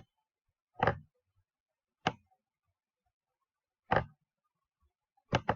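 A handful of short, sharp clicks at uneven intervals with silence between them, the last two in quick succession near the end.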